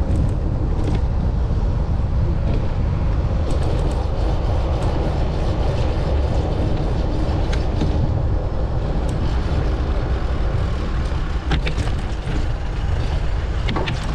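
City street traffic with a steady rumble of passing vehicles, broken by a few short sharp clicks and knocks.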